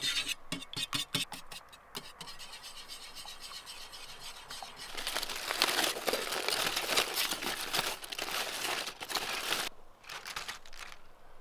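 Scraping and scratching while handling food or utensils: a quick run of short scratchy strokes, then several seconds of louder, steady scraping that stops abruptly, followed by a few light clicks.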